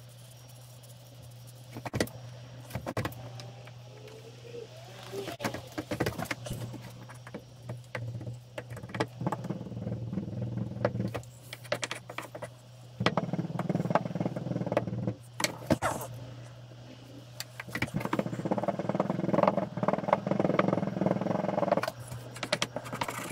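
Foundry green sand being packed and rammed into a small wooden flask with a wooden rammer: runs of knocks, taps and gritty scraping, busiest in the second half, over a steady low hum.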